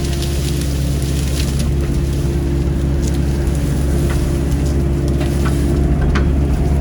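CAT 307C excavator's diesel engine running steadily while digging, with scattered light cracks and clicks over it.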